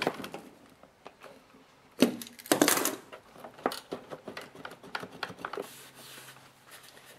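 Small clicks and rattles of pliers and a spring fuel-line clamp being worked while a rubber fuel line is pushed onto a plastic lawnmower carburetor, with a louder clatter about two seconds in. Near the end, a cloth wiping.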